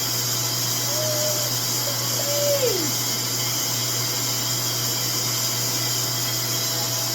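RevAir reverse-air hair dryer running steadily: its suction motor whirring with a constant rush of air as the wand draws hair in at the scalp.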